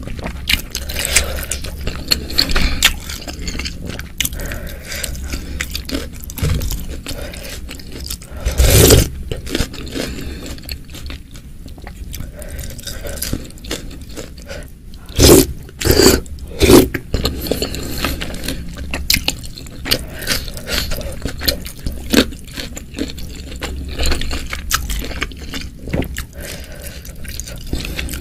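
Close-miked eating of boiled wontons in soup: wet chewing, with a wooden spoon scraping and knocking in a glass baking dish as wontons are scooped up. A few louder bursts come about a third of the way in and again around the middle.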